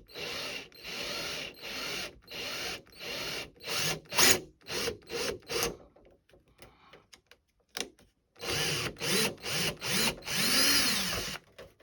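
Small power drill run in short trigger bursts, about two a second, then after a pause in longer runs that speed up and slow down. It is opening up the propeller-shaft hole in a plastic model ship hull.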